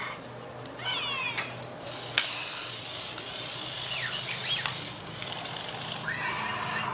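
Shih Tzu giving high-pitched, yelping barks in short bursts that fall in pitch, with a cluster about a second in, a few more near the middle and another burst near the end.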